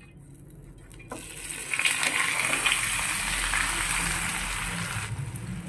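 Fish roe omelette slid from a plate into a hot oiled frying pan, turned over, and sizzling in the oil. The sizzle swells up about two seconds in and drops off sharply about five seconds in.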